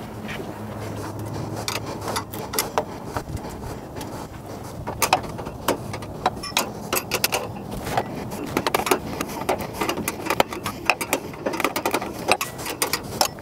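Quick, irregular clicks and clinks of a wrench being worked on the fastenings of a roadster's side curtain. They are sparse at first and come thick and fast through the second half.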